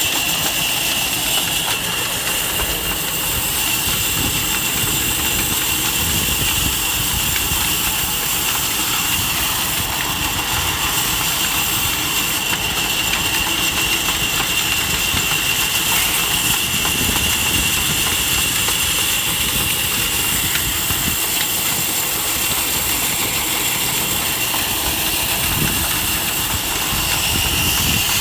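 Tractor-driven band saw running steadily and sawing a log lengthwise, with a constant high blade whine over the tractor engine's steady running.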